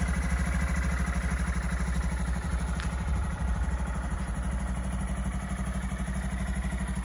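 Honda Monkey 125's air-cooled single-cylinder four-stroke engine idling steadily, with an even, quick low pulse.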